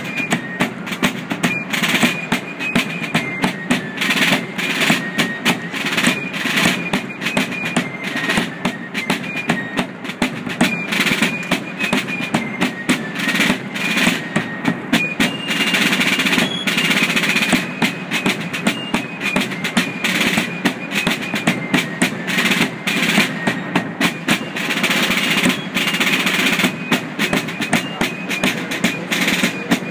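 Fife and drum corps playing a march: fifes carry a high melody over a steady rhythm of rope-tension snare drums with drum rolls and a bass drum.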